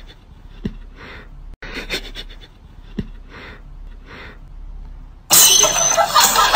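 A cat sniffing at a sock held to its face: short, faint sniffs with soft taps that repeat every couple of seconds. About five seconds in a much louder, harsh burst of sound begins and keeps going.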